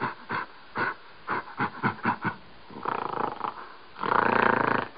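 Gorilla vocalizing: a quick run of short calls, about three a second, then longer, louder drawn-out calls, the loudest in the last second.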